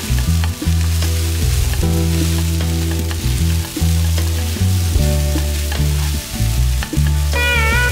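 Sabudana, crushed peanuts and diced potatoes sizzling in hot ghee in a nonstick wok on high flame, with a spatula stirring and scraping through them. Background music with a steady bass line runs under it, and a melody comes in near the end.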